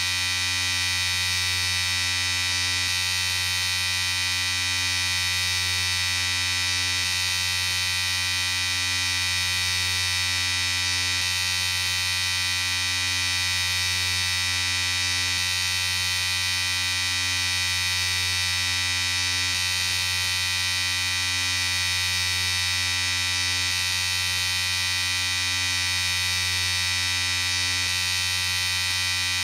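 Electric shaver running continuously: a steady buzz over a strong low hum, with a faint slow waver in the tone about once a second.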